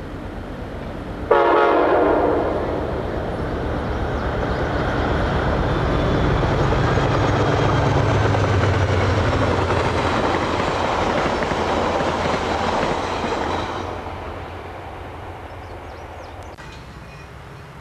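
Amtrak GE Genesis diesel locomotive sounding a short horn blast about a second in. Then its diesel engine and the passenger train's wheels pass close by, building to a loud peak and dropping away sharply near the end.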